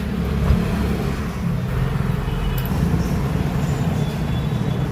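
Steady low background rumble, with a faint click about half a second in.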